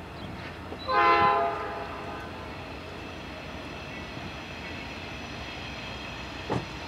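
Air horn of a Norfolk Southern Dash 9-40CW diesel locomotive sounding one short, loud blast about a second in, as the freight train approaches. Faint steady tones and the train's rumble follow, with a short thump near the end.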